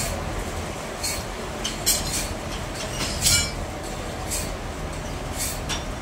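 Sawmill machinery running steadily with a low hum. A short hiss repeats about once a second, and two sharp knocks come near the middle.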